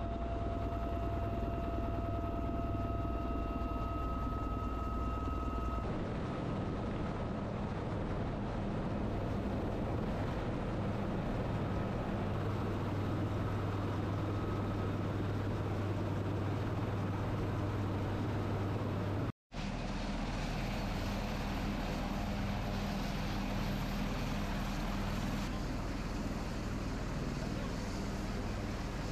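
Steady noise of a UH-1Y Venom helicopter's rotors and twin turboshaft engines, mixed with wind rush. The sound shifts abruptly about six seconds in, and cuts out for an instant about two-thirds of the way through before carrying on.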